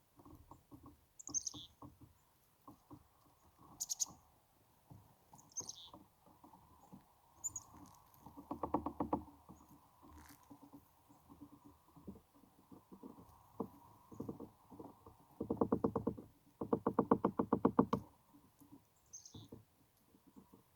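Chickadees giving a few short, high calls that slide downward, over soft close-up tapping and rustling. Three louder bursts of rapid, even tapping stand out, about a third of the way in and twice near the end.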